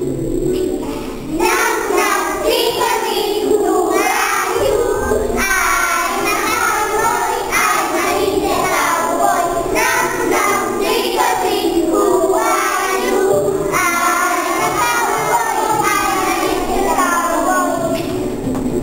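A group of young children singing a song together, starting about a second in.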